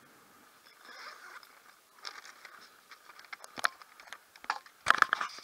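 A paper takeaway bag being handled right against the camera's microphone: rustling and scraping with a string of sharp clicks, building to a louder clatter near the end.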